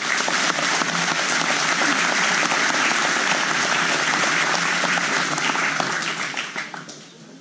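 Audience applauding, a dense patter of many hands clapping that dies away over the last second or so.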